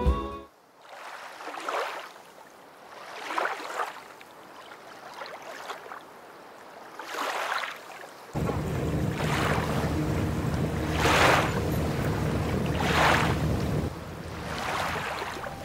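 Small waves lapping at the water's edge or a hull, a soft wash that swells and fades about every two seconds. From about eight seconds in, a steady low rumble joins, which stops abruptly near the end.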